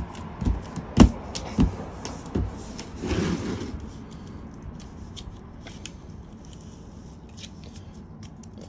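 Handling noise from the plastic-housed portable air compressor and its cardboard packing: four sharp knocks in the first two and a half seconds, a short rustling scrape about three seconds in, then faint scattered clicks. The compressor is not running.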